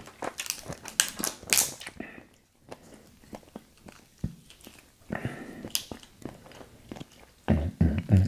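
Cooked lobster shell being cracked and pulled apart by hand: clusters of sharp crackles and snaps in the first two seconds and again a few seconds later. Near the end a louder, low pulsing sound begins.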